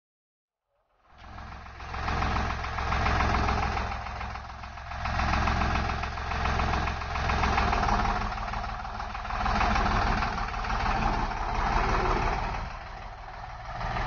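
Deutz-Fahr Agrolux 70 tractor's diesel engine running, its note rising and falling every couple of seconds as the tractor is driven. It fades in about a second in and fades away near the end.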